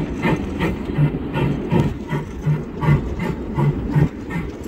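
Footsteps crunching on gravel ballast, an even walking rhythm of about two and a half steps a second.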